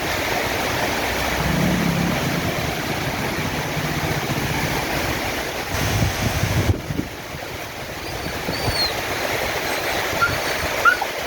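Steady rushing noise of storm rain and wind, with a low hum in the first few seconds and a sudden dip just before the middle. A few short high chirps come near the end.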